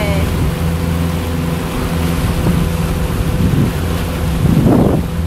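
A small fishing boat's motor running steadily under way, a low even hum, with wind rushing over the microphone and water noise from the hull. The rush swells louder briefly near the end.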